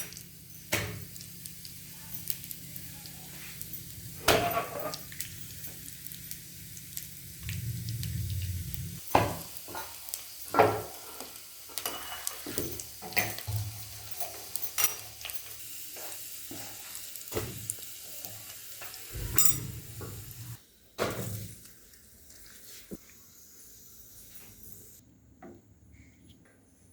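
Garlic sizzling in hot mustard oil in a small pan, with a spoon stirring and clinking against the pan at irregular moments. The sizzle and stirring die down after about twenty seconds.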